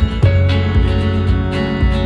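Background music led by strummed guitar with a steady rhythm.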